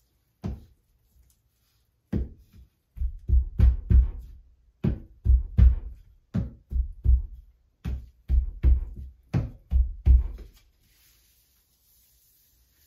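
A series of about twenty dull thumps in an uneven rhythm as a rubber grout float is pressed and tapped against a glass mosaic sheet on the wall, bedding the tiles into the thinset. The thumps stop about ten and a half seconds in.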